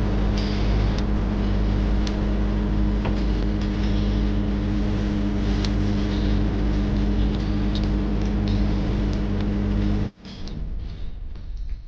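Yacht's inboard engine running with a steady, even drone under the rush of wind and water while under way. About ten seconds in it cuts off abruptly to a much quieter background with a few faint clicks.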